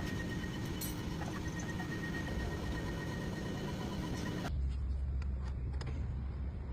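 Car engine running in the engine bay. About two-thirds of the way through it cuts abruptly to a deeper, steadier low hum.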